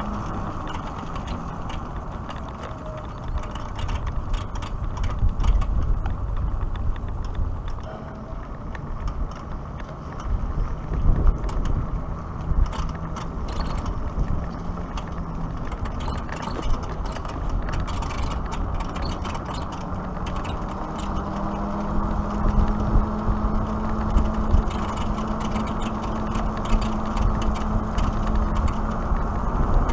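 Wind noise on the microphone and tyre noise from a Black Tea Bonfire X electric motorcycle riding at about 20 to 30 km/h, with scattered clicks and rattles in the middle. A faint steady hum joins about twenty seconds in.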